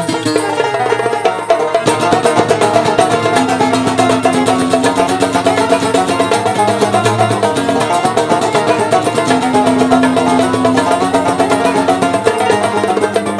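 Instrumental passage of Algerian popular song: fast, rapidly picked plucked strings over long held low notes, with no singing.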